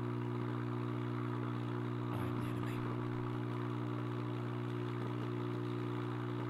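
Steady low electrical hum with a hiss behind it, unchanging throughout, with a few faint knocks about two seconds in.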